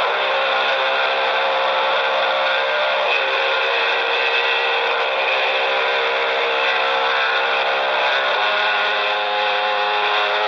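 Chainsaw running steadily, its pitch shifting slightly about eight seconds in.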